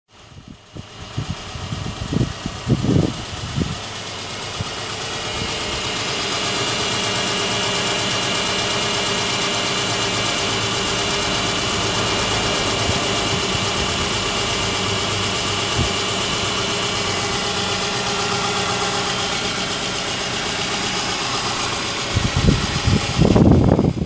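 2009 Subaru Forester's EJ25 2.5-litre flat-four engine idling steadily, getting louder over the first few seconds. A few low thumps sound about two to three seconds in, and a cluster of handling knocks comes near the end.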